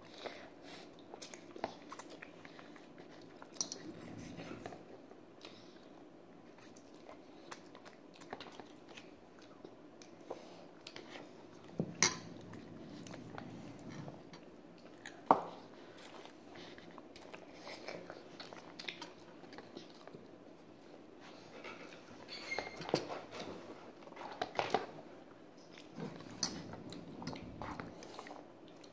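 Children eating instant cup noodles: quiet chewing, with scattered sharp clicks of a fork and chopsticks against the cups, two louder clicks about halfway through.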